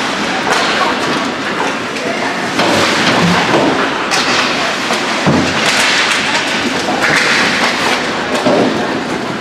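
Ice hockey game in play: a steady hiss of skates on the ice with dull thuds against the boards, the loudest about five seconds in, over spectators' voices.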